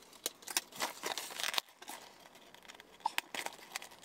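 Cardboard and plastic toy packaging being handled and torn open: a run of crinkling and tearing that stops abruptly after about a second and a half, then a few sharp clicks about three seconds in.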